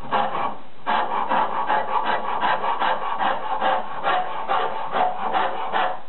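Auriou cabinetmaker's rasp being stroked over the end of a maple chamfer, shaping a curve. One short stroke, then from about a second in a steady series of rasping strokes, about three a second.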